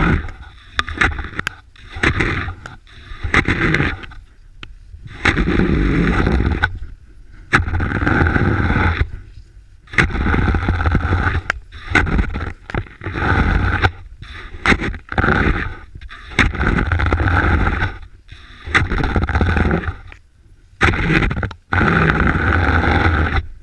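Cross-country skis sliding and scraping through snow, a hissing scrape that comes in uneven bursts every second or two with each stride.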